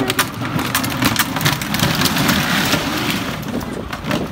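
Hard plastic wheels of a children's ride-on toy jeep rolling over asphalt under an adult's weight: a steady rolling noise with many small rattling clicks.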